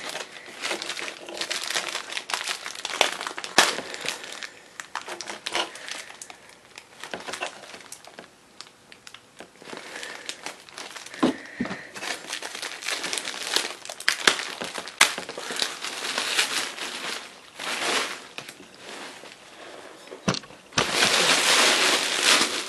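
Clear plastic packaging wrap being pulled and torn off an office chair's armrest by hand, crinkling in irregular crackles, with a louder burst of rustling near the end as the plastic is yanked away.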